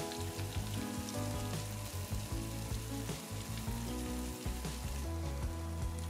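Background music with a low bass line and changing chords, over a faint crackling hiss.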